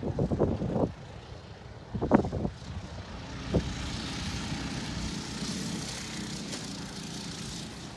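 Several short loud knocks in the first two seconds, then the steady drone of the small engines of a minibike and an ATV running.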